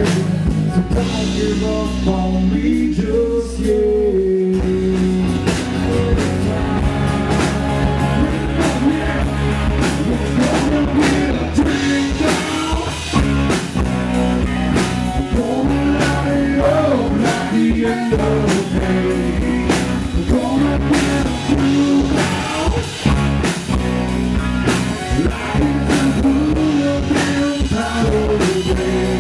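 Live country band playing: a man singing over acoustic guitar, electric guitar and drums. The sound changes abruptly about four seconds in, where one song gives way to another.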